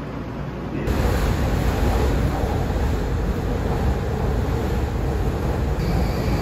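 Passenger train running, heard from inside the carriage: a steady rumble and rush of wheels and motors. It starts abruptly about a second in, after a quieter hum.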